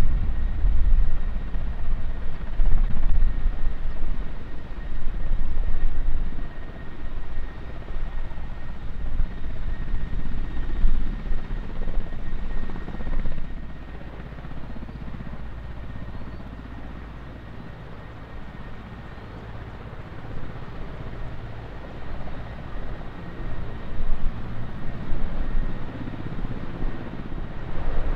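Mi-17 helicopter running in a low hover: main rotor chopping, with a steady high whine from its twin turboshaft engines. The sound falls off for a while mid-way and grows louder again near the end as the helicopter lifts off.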